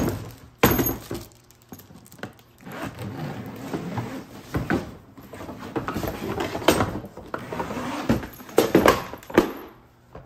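Suitcase zipper being run open around a carry-on case, mixed with rustling handling noise and knocks as the lid is swung open and laid flat, including a sharp knock about a second in.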